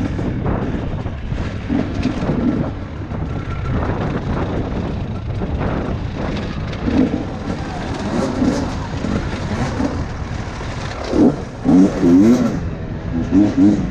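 Husqvarna enduro dirt bike engine running at low speed with the throttle blipped on and off, then several short, sharp revs near the end.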